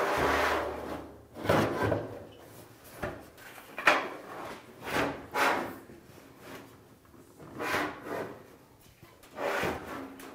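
GE dryer's sheet-metal drum scraping and rubbing against the cabinet in a string of short scrapes as it is worked loose and pulled out.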